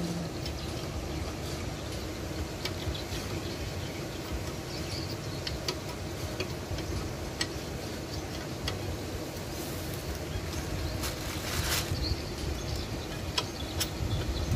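Scattered light metal clicks and scrapes of a hand tool worked around the cast-iron flange seam of an Alkon NS 150 water pump casing, with one louder scrape about two-thirds of the way through, over a steady outdoor background hiss.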